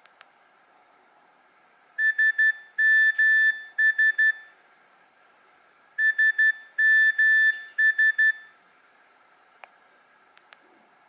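Nokia 3100 mobile phone playing one of its built-in ringtones: a pattern of short and long beeps at one high pitch, played twice about four seconds apart. A few faint clicks follow near the end.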